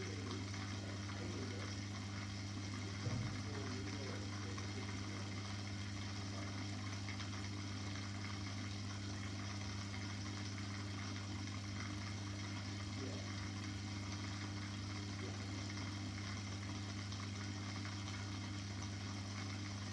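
Steady electric hum of an aquarium pump with a low, even water noise. A single brief thump about three seconds in.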